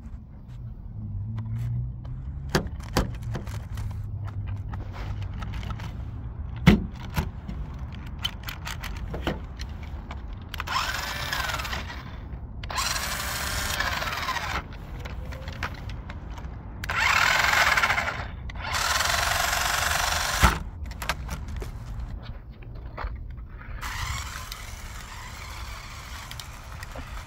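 Adventure Force XT Racer toy RC car's small electric motor and gears whirring in several bursts of a couple of seconds each as the throttle is worked, the pitch rising and falling with speed. A few sharp plastic clicks come in the first seconds.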